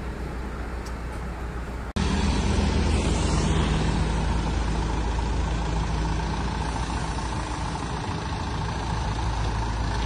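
Mitsubishi Canter minibus's diesel engine running at low speed as the van pulls slowly out of the workshop onto the road. The sound cuts sharply about two seconds in and returns louder and closer, then holds steady.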